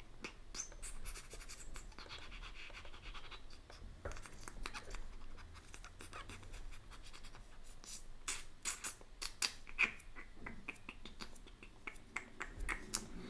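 Faint, irregular small clicks and scratches, bunched together about eight to ten seconds in, over a low steady hum.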